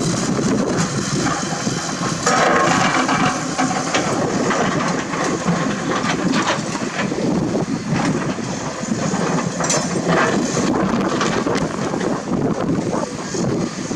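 Komatsu PC210-10 excavator working rock: its diesel engine running under load while the bucket scrapes and rock clatters against steel. A louder grinding scrape comes about two seconds in, and a few sharp knocks come near the end.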